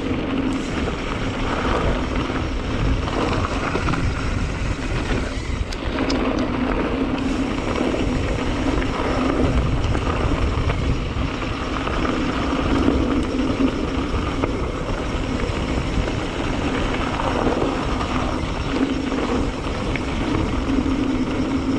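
Mountain bike riding noise: wind rushing over the microphone with a steady low rumble, and a hum from the knobby tyres rolling on the trail that swells and fades.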